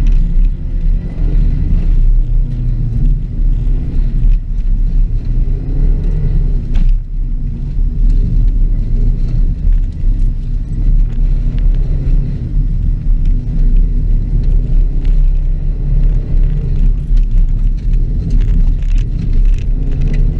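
A 2006 Subaru WRX's turbocharged flat-four engine is worked hard on a dirt rallycross course, its revs rising and falling through the run. There is a brief lift about a third of the way in. Scattered clicks and rattles sound over the low rumble.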